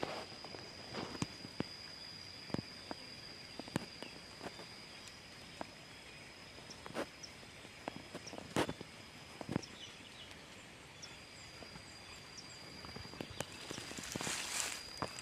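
Scattered light knocks and steps at an irregular pace over a steady high-pitched tone, which drops out about ten seconds in and returns a second later.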